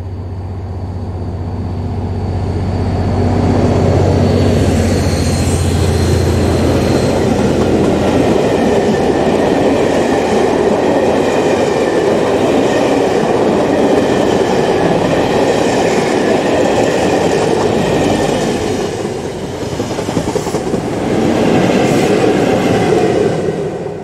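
Diesel-hauled passenger train with a locomotive at each end passing close by at speed. The leading locomotive's engine hum is heavy for the first several seconds, then the coaches go by with a long steady rumble of wheels on the rails. A swell near the end comes as the rear diesel locomotive goes past, and the sound fades quickly at the very end.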